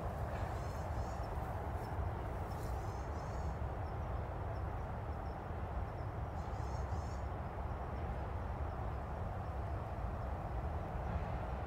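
Steady low outdoor background rumble, with a bird's short high chirping calls three times: about half a second in, near three seconds, and near seven seconds.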